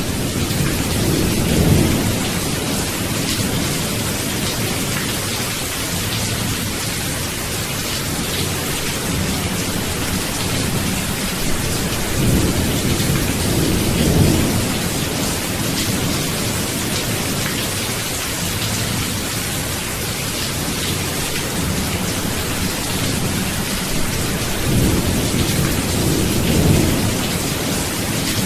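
Steady rain falling, with three low rolls of thunder: about a second in, around halfway, and near the end.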